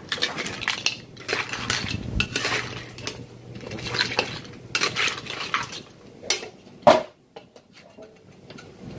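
A metal spatula scraping and clanking against a large metal wok as shell-on crabs, shrimp and mussels are stirred and tossed, in repeated bursts. One sharp clank comes about seven seconds in, and it is quieter after that.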